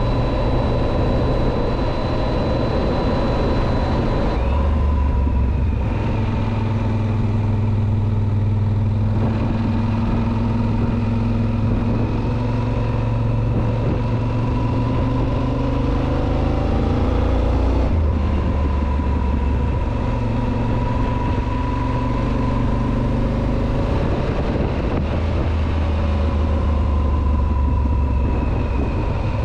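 Yamaha XT1200ZE Super Ténéré's 1199 cc parallel-twin engine running while the bike is ridden, with wind and road noise. The engine note steps to a new pitch several times and climbs steadily for several seconds in the middle.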